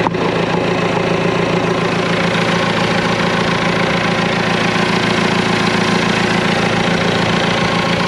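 Caterpillar 416C backhoe's diesel engine idling steadily with an even, pulsing note.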